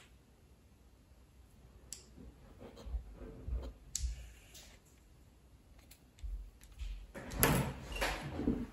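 Small objects being handled on a workbench as a soldering setup is pulled apart: scattered light taps and clicks, with a louder stretch of rubbing and shuffling about seven and a half seconds in.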